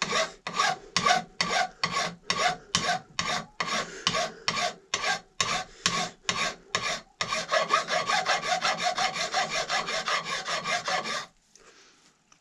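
Mill file draw-filing a steel flintlock barrel, smoothing the freshly installed stainless touch hole liner flush: rasping back-and-forth strokes about three a second, quickening to a fast steady filing for the last few seconds before it stops.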